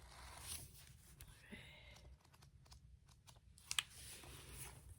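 Paper pages being flipped, a soft rustling swish followed by light ticks of paper, with one sharper click a little before four seconds in.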